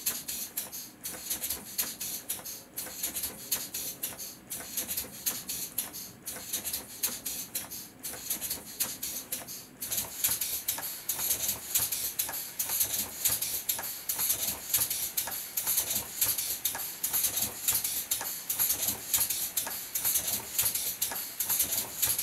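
LEGO Technic six-cylinder radial air engine running on nitrogen gas boiled off from liquid nitrogen: a fast, uneven run of short hissing exhaust puffs from its pneumatic cylinders. The puffs get louder and denser about ten seconds in.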